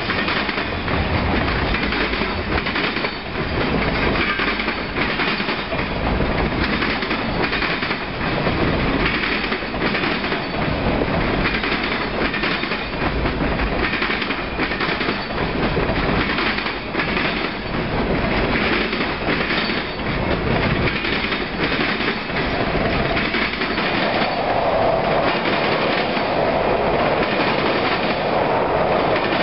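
Freight cars rolling steadily past, with steel wheels clicking over the rail joints in an uneven clickety-clack.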